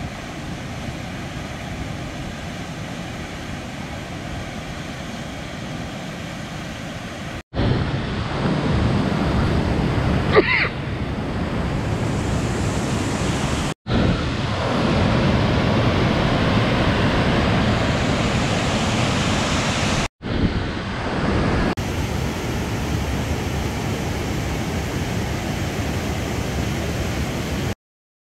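Waterfall rushing: Blakiston Falls pouring through a rock gorge, a steady dense noise of falling water. It drops out briefly three times and stops abruptly near the end. A brief high squeak comes about ten seconds in.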